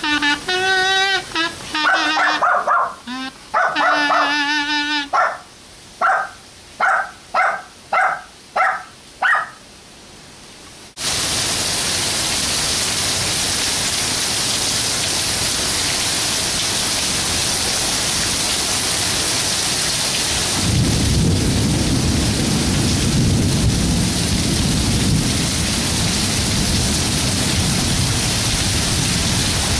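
A kazoo buzzing a wavering tune, then seven short yaps about a second apart from a small Papillon-Pomeranian mix dog. About eleven seconds in, heavy thunderstorm rain starts pouring, steady and loud, with low rumbling thunder from about twenty seconds on.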